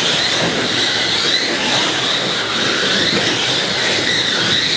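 Several slot cars running on a Carrera plastic track, their small electric motors whining steadily, the pitch rising and falling through the lap.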